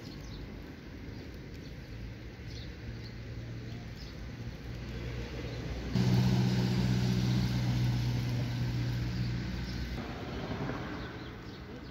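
A motor vehicle's engine running at a steady pitch, much louder from about six seconds in and dropping back about four seconds later.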